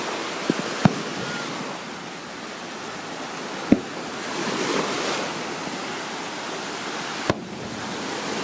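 Ocean surf washing in over the shallows as a steady rush that swells about halfway through, with four short sharp clicks.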